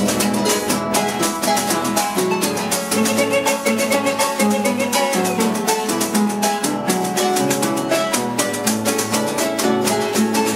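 Chilean cueca music with guitar, playing at a quick, even beat.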